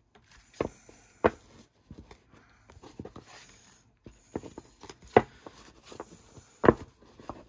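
A Fantome Tarot deck being hand-shuffled: cards sliding and rustling as the two halves are worked into each other, with several sharp clacks as the cards knock together, the loudest about a second in and near the end.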